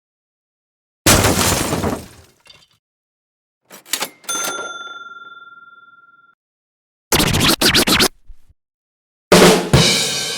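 A string of separate short sound effects: a noisy crash that dies away, a click and a ringing ding that fades slowly, a quick run of sharp knocks, then a hit that opens into a sustained musical chord.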